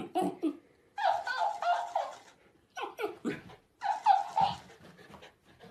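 A dog yipping and whining in short bursts at a talking hamster toy, a mimic plush that records sounds and plays them straight back in a higher, sped-up voice. The dog's sounds and the toy's squeaky replays alternate with short pauses between.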